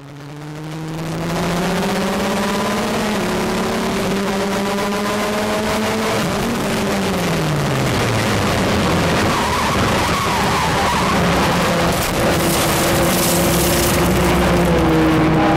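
Formula Ford race car engine running at speed, fading in and then climbing slowly in pitch over about six seconds, with a falling note about six seconds in before it settles at a steadier pitch.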